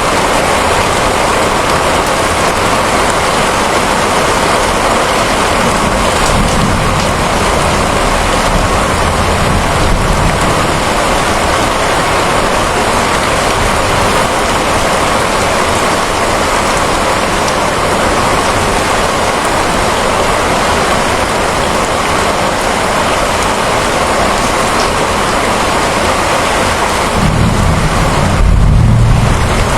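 Steady, heavy rainfall hissing evenly. A low rumble of thunder swells faintly about a quarter of the way in, and a louder one rolls in near the end.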